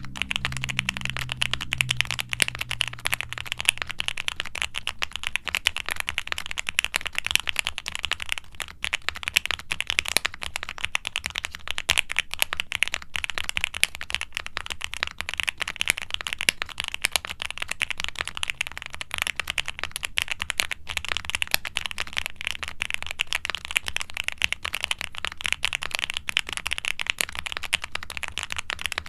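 Continuous fast typing on a QwertyKeys QK65 mechanical keyboard with full-POM, lightly factory-lubed Kailh Cream Pro switches on a polycarbonate plate, fully foam- and silicone-dampened. It makes a dense, steady stream of key presses with a somewhat thocky sound that the owner finds a bit muddled and rattly.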